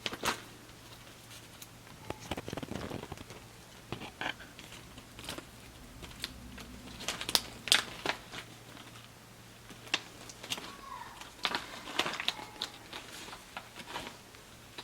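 A snack bag crinkling and rustling in irregular bursts as a baby squirrel monkey rummages in it and pokes his head inside.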